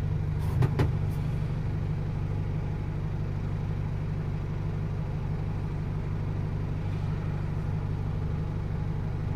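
A steady, low engine hum at idle runs throughout, with a few light clicks about half a second to a second in.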